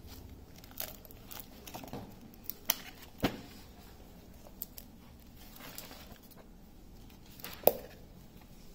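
Paperback books and their packaging being handled: paper and glossy covers rustling and crinkling, with a few sharp taps and knocks as the books are moved, the loudest near the end.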